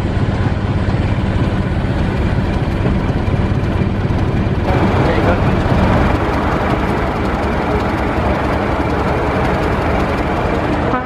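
Diesel locomotive engines running steadily at idle: first Class 73 electro-diesel 73001, then, after a cut about five seconds in, Class 31 diesel 31601 close by, with a brighter, harsher tone.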